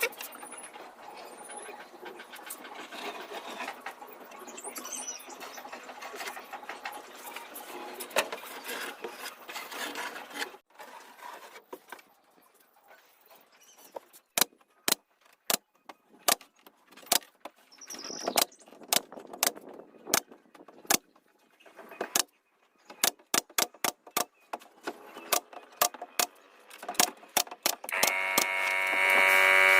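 A steady noise, then a long run of sharp, irregular knocks, one or two a second, during work on cabinets. About two seconds before the end, a steady whining tone starts and grows louder.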